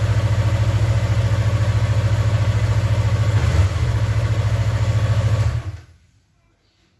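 Yamaha R3 motorcycle's 321 cc parallel-twin engine idling steadily, with a brief change in pitch and level a little over three and a half seconds in. It is then switched off near the end, the sound dying away within about half a second.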